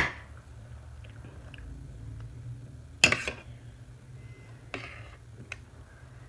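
Someone eating biryani with a spoon and chewing close to the microphone, with a sharp knock at the start and another about three seconds in.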